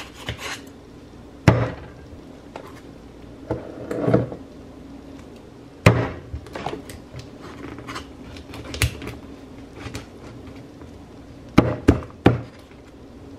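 Meat cleaver chopping cooked chicken on a stack of plates on a kitchen counter: irregular sharp chops, three in quick succession near the end.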